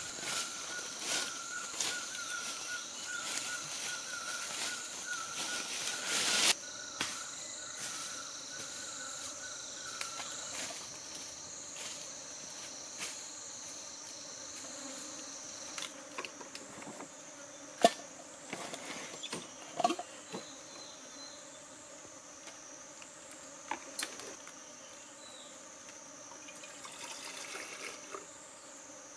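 Insects droning in the forest: a steady, high-pitched buzz that wavers slowly up and down in pitch, with a second, lower insect tone during the first third. A few sharp crunches and clicks in dry leaf litter sound over it in the second half.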